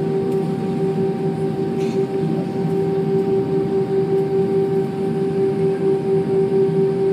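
Steady cabin noise of an Airbus A320's jet engines heard from inside the cabin: an even rushing hum with a constant droning tone running through it.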